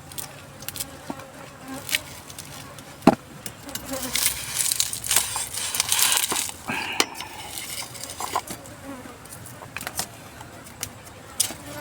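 A fly buzzing close by, with scattered clicks and rustling from handling things; one sharp click about three seconds in is the loudest sound, and a denser stretch of rustle and clatter follows in the middle.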